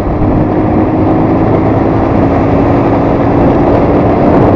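Vehicle travelling along an unpaved dirt road: a loud, steady rumble of engine and road noise, with a thin steady hum through most of it.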